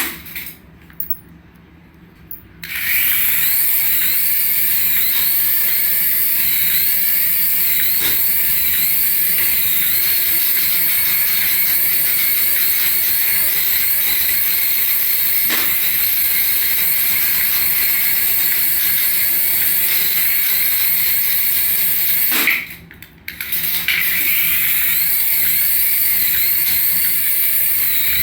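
Battery-powered light-up toy running: a steady electric motor whir with a repeating warbling tone that rises and falls about twice a second. It cuts out briefly twice, for about two seconds shortly after the start and for about a second later on.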